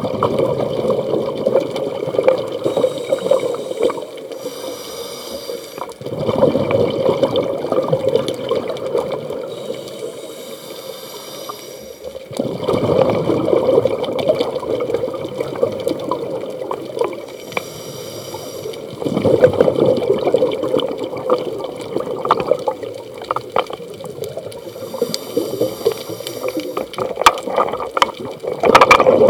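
Scuba diver breathing through a regulator underwater: exhaled bubbles gurgle out in long bursts about every six to seven seconds, with the quieter hiss of the regulator on each inhale between them.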